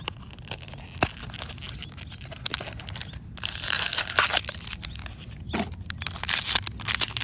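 Small cardboard blind box being opened, with light clicks and taps of its card flaps; a sharp click about a second in. From about three and a half seconds on, the foil blind bag inside crinkles loudly as it is pulled out and handled.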